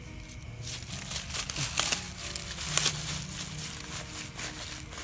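Irregular crinkly rustling and crackling, a dense run of small sharp strokes that is busiest about two seconds in.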